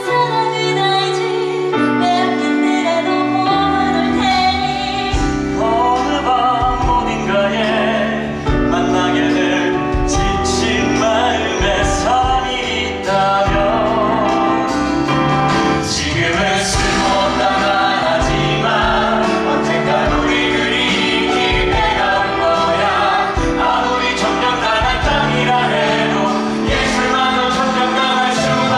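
Musical theatre cast singing an upbeat number together over a band, with bass and drums coming in about two seconds in.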